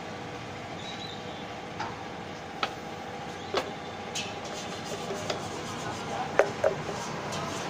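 Scattered sharp metallic clicks and clinks as the parts of a moped shock absorber are handled and the cap is threaded onto the damper tube, the loudest near the end. Steady street traffic noise runs beneath.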